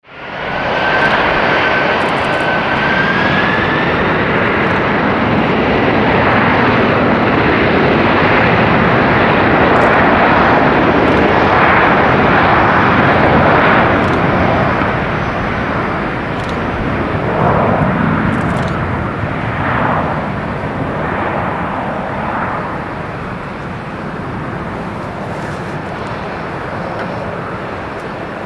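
Airbus A320-200 jet engines at taxi power as the airliner rolls past close by, a high whine rising slightly over the first few seconds, the engine noise loudest midway and slowly fading as it moves away.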